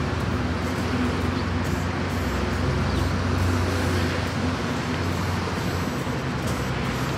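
Steady road traffic noise: a continuous rumble of passing vehicles with a low engine drone underneath.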